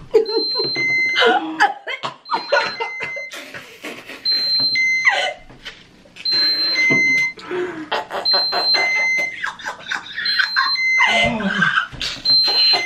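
Enteral feeding pump alarm beeping, a high tone then a lower tone repeating about every two seconds. Underneath, two people gag, cough and laugh.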